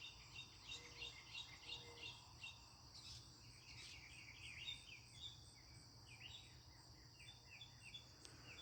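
Northern mockingbird singing faintly: short chirped notes repeated in quick runs, switching to a new phrase every few seconds, mimicking the calls of other birds. A steady insect drone runs underneath.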